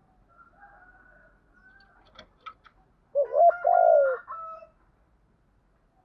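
Caged decoy spotted dove cooing: one loud, short phrase of coos about three seconds in, after a few faint clicks.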